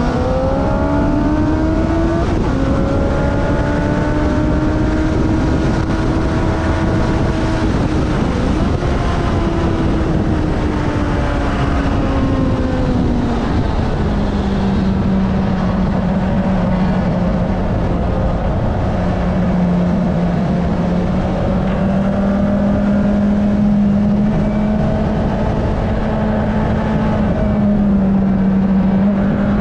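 Kawasaki ZX-9R's inline-four engine, heard from a camera on the bike under heavy wind noise. The engine note rises in the first two seconds, holds steady, then falls between about ten and fourteen seconds in and stays at lower revs for the rest.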